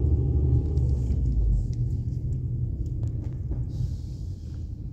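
Low, steady engine rumble from a vehicle running at low speed, easing off a little after about a second and a half, with a few light clicks and knocks and a short hiss shortly before the end.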